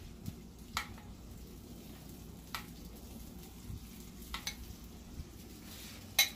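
Metal spoon clinking and scraping against a ceramic bowl of hollandaise sauce, a few light clinks about two seconds apart with the loudest near the end, over a faint steady sizzle from a skillet simmering on the stovetop.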